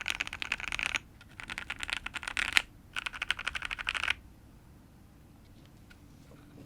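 Fast typing on a custom mechanical keyboard with lubed and filmed Everglide Aqua King linear switches on an FR4 plate, giving a poppy bottom-out clack. It comes in three quick bursts with short gaps and stops about four seconds in, leaving only a few faint clicks.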